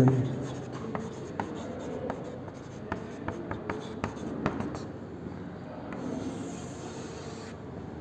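Chalk writing on a chalkboard: scratchy strokes with many short taps and clicks as the chalk meets the board.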